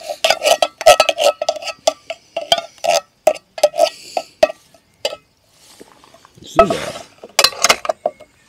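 Metal spoon tapping and scraping against metal camping cookware, a quick run of ringing clinks for about four seconds. A few louder rustling sounds follow near the end.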